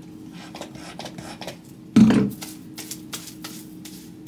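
Hands working product through long curly hair and handling a mousse bottle: light rustling and small clicks, with one brief louder sound about two seconds in.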